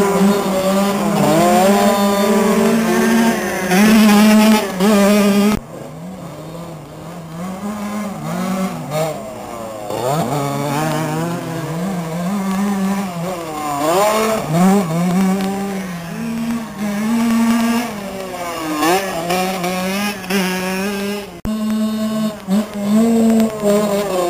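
Youth motocross bike engines racing, their pitch repeatedly rising and falling as the riders accelerate, shift and back off. Loudest for the first five seconds or so, then quieter and farther off.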